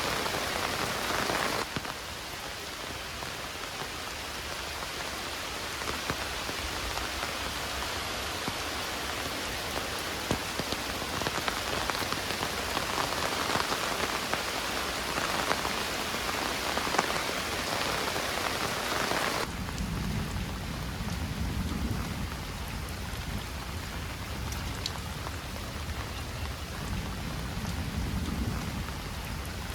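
Heavy rain falling steadily. The rain's sound changes abruptly about two seconds in and again about two-thirds of the way through. In the last third, two low rumbles swell and fade.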